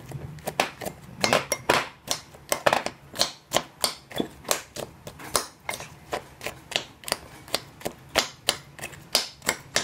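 Metal spoon clinking and scraping against a ceramic bowl as ice cream is mashed and stirred together with crushed Oreo cookies: sharp, irregular clinks, a few each second.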